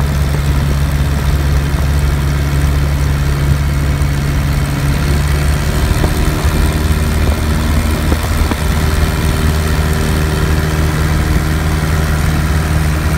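Piper Cub's air-cooled flat-four engine and propeller running steadily in flight, heard from inside the cockpit with a rush of wind noise. The engine note shifts slightly about six seconds in.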